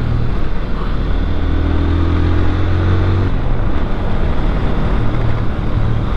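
Motorcycle engine running under way, heard from the rider's seat with wind and road noise. Its note holds and climbs a little, then falls away about three seconds in.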